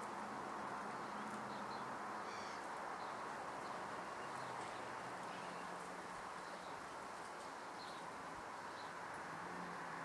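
Faint, short, high bird chirps, scattered every second or two, over a steady background noise with a low hum.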